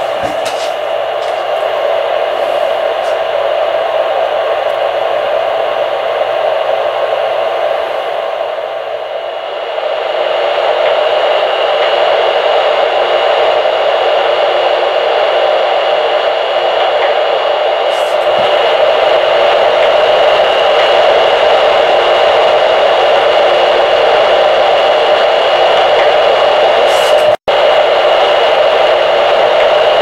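Loud, steady hiss of static from the speaker of a Realistic FM cordless monitor receiver, with a thin high whistle running through it. It grows louder about ten seconds in and cuts out for an instant near the end.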